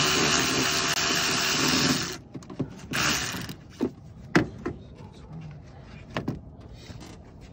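Cordless power tool spinning a socket to back out a radiator-support bolt: its motor runs steadily for about two seconds, stops, then runs again in a short burst about three seconds in. A few sharp clicks and knocks follow as the tool and socket are worked around the bolt.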